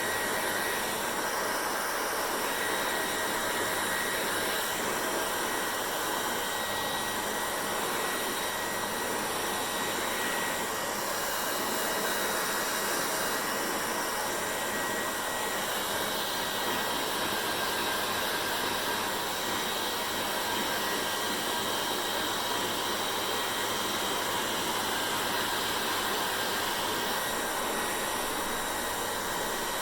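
Hair dryer running steadily: an even rush of blown air with a faint high whine from its fan motor.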